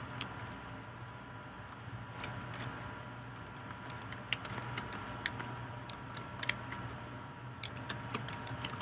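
Typing on a computer keyboard: irregular keystroke clicks in short runs, starting about two seconds in, over a faint steady hum.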